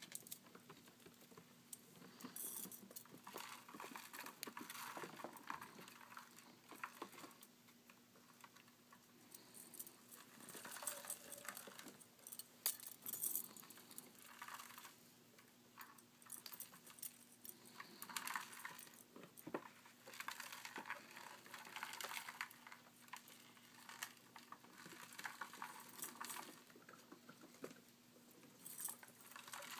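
Faint rustling, scratching and small clicks as pet rats scramble over a blanket and are handled, over a low steady hum.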